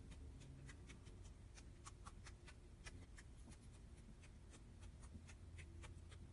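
Faint slime being squeezed and poked by hand, making quick, irregular small clicks and crackles.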